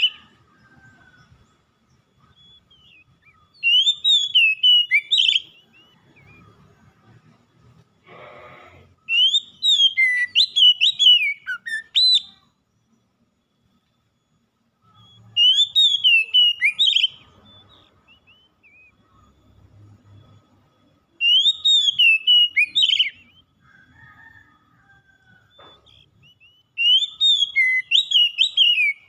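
Oriental magpie-robin (kacer) singing: short phrases of loud, whistled notes that slur up and down, repeated five times at about six-second intervals.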